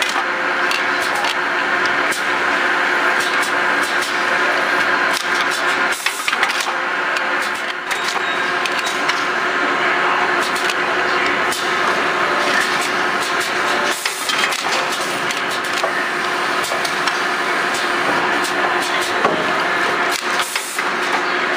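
Shankboard cementing machine on an insole assembly line running steadily: a constant mechanical hum with frequent light clicks and clatter.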